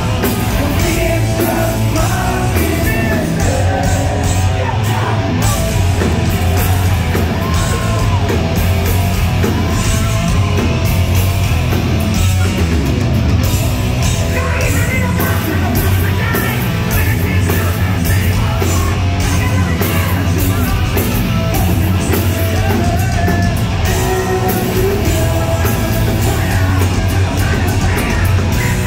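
Live heavy metal band playing loud: distorted electric guitars and drums under a male lead singer's sung and yelled vocals, in a large hall.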